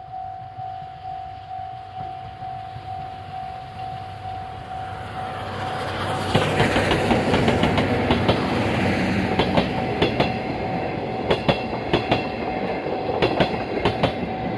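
A level crossing warning bell rings in a steady pulsing beat, about two to three strokes a second. A steam-hauled passenger train approaches and its noise swells; from about six seconds in the coaches pass close by, their wheels clacking over the rail joints.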